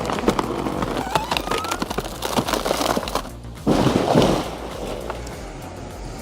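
A large felled tree cracking and splintering as it goes over, then a heavy crash a little under four seconds in as it hits the ground.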